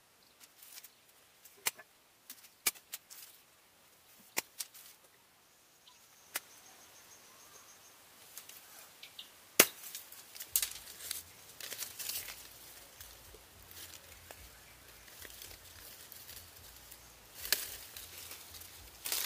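Scattered sharp clicks and snaps of a knife cutting and splitting bamboo strips, the loudest about ten seconds in. Near the end, a quick cluster of snaps and crackling as leafy branches are handled.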